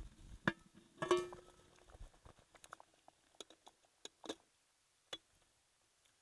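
Clinks and taps of cooking utensils or cookware. About a second in comes one sharp metal clank that rings briefly, followed by a few lighter taps and clicks that die away.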